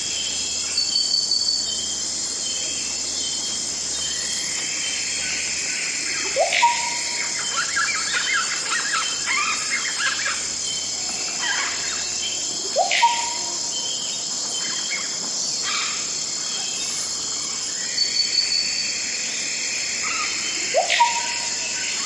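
Tropical rainforest dawn ambience: a steady high chorus of insects. Over it, a bird call sweeps up and holds a note three times, several seconds apart, with scattered bird chirps in between.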